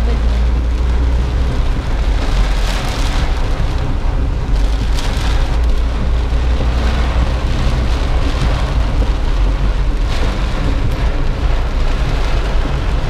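Heavy rain falling on a moving car's windshield and roof, heard from inside the cabin, over a constant low rumble of the car on the wet road. The hiss swells and eases every second or two.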